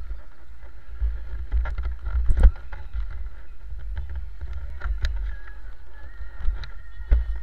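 Motorcycle riding slowly in street traffic, heard through a camera mounted on the bike: a steady low rumble of engine and wind on the microphone, with scattered knocks and clicks, the loudest about two and a half seconds in.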